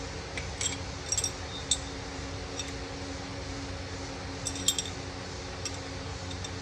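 Light metallic clinks and taps of a hand tool against motorcycle springer fork parts, a few scattered strikes with a short ring, bunched near the start and again a little past the middle. A steady low hum runs underneath.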